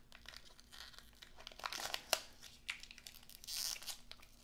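1992-93 Topps basketball wax-paper pack wrapper crinkling and tearing as fingers pick at and peel open its stubborn sealed seam: faint scattered crackles, a few sharper snaps about two seconds in, and a longer rustle near the end as the wrapper comes apart.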